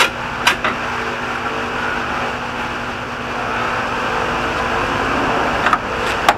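Steady whir of a large pedestal shop fan, with a few sharp clicks, about half a second in and twice near the end, as the old plastic headlight housing is worked loose.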